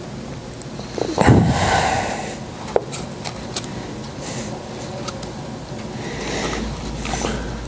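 Gas torch flame burning steadily while a small engine intake tube is heated to anneal it soft for bending, with a louder rush about a second in and scattered light clicks and taps.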